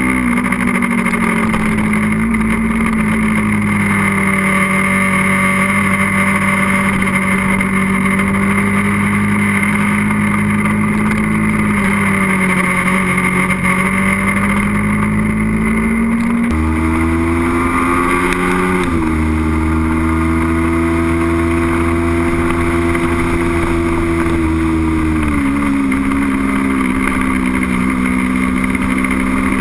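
Sportbike engine running at steady cruising revs with the rush of riding at speed; the engine note sags around twelve seconds in, jumps sharply higher about sixteen seconds in as a gear changes, then steps down again around nineteen and twenty-five seconds.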